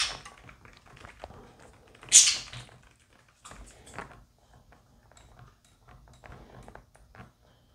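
Scattered small clicks and taps from an electric guitar being handled while its tuning pegs are turned to slacken the strings, with one louder brief scrape about two seconds in.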